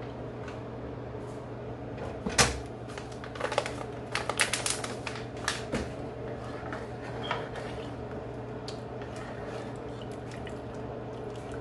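Kitchen clatter of cookware being handled: a sharp knock a little over two seconds in, the loudest, then a quick run of clicks and knocks around four to five seconds in and a few scattered ones after, over a steady low hum.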